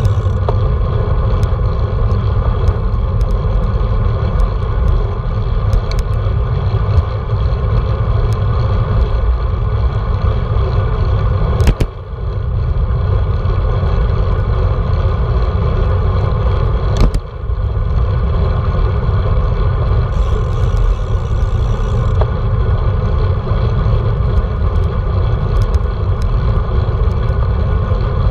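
Wind buffeting the microphone of a handlebar-mounted action camera on a road bike at riding speed, a loud steady rumble with road noise from the tyres. Two sharp knocks come a few seconds apart near the middle.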